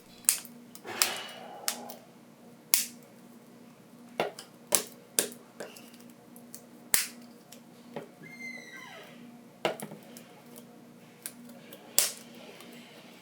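Plastic midframe of a Samsung Galaxy A21s being pressed down onto the phone, its clips snapping into place around the edges: a string of sharp, irregular clicks, over a dozen of them.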